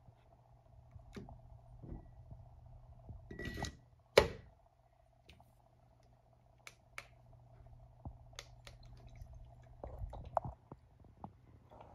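Handling of an ultrasonic aroma diffuser: light clicks and rubbing as its plastic cover is lifted off, a sharp knock about four seconds in as the ceramic cover is set down on the base, and a few small clicks near the end as it is switched on. A faint steady hum runs underneath.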